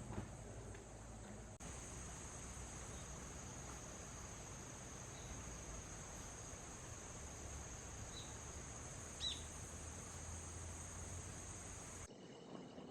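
Insects, crickets or similar, chirring faintly in a steady high-pitched drone that starts about a second and a half in and cuts off suddenly near the end. A couple of short high chirps come past the middle.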